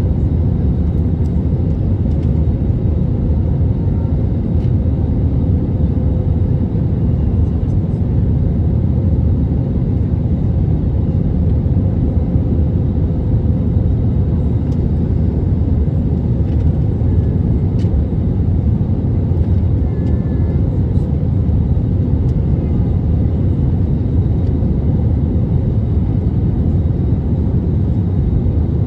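Steady cabin noise of an Airbus A320neo on approach with flaps extended: the engines and airflow make a continuous low rumble with a faint steady hum, heard from a seat over the wing.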